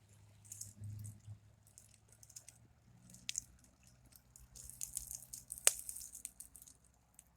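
Faint rustling and crackling in short irregular bursts, busiest in the middle, with one sharp click about five and a half seconds in, over a faint low hum.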